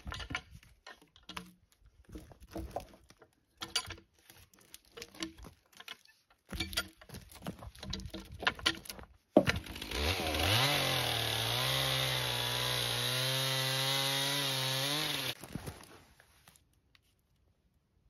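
Wooden knocks and thumps of pine logs being rolled with a cant hook. Then, after one sharp knock, a chainsaw revs up and runs steadily for about five seconds before stopping.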